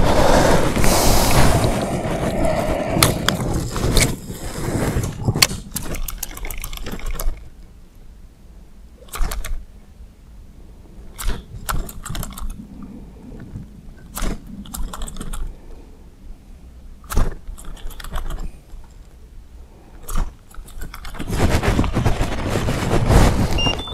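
Lure fishing with a baitcasting reel: several seconds of rushing noise at the start, then scattered sharp clicks and short splashy bursts a second or two apart as the lure is worked on the water and reeled in.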